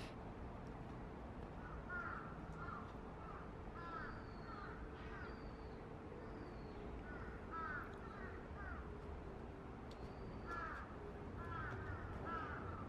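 Birds calling in short runs of three or four quick notes, repeated every second or two, with a few higher thin whistled notes, over a steady low hum.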